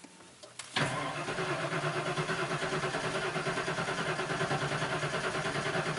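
Ford 5.8L V8 cranking over on the starter with an even, rhythmic pulsing, starting about a second in. The throttle is held to the floor for a relative compression test, so the engine turns but does not fire.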